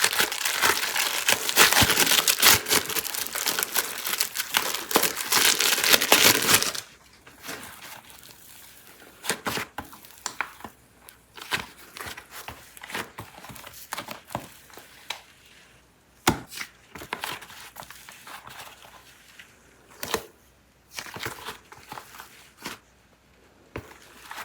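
Plastic clay packaging crinkled loudly as it is unwrapped, stopping about seven seconds in; then quieter scattered taps and clicks of handling the clay and its packs.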